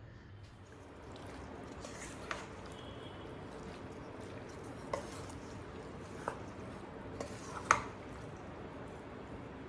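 Kitchen food-preparation sounds: soft wet handling with four light, sharp clinks spread through, the loudest near the end.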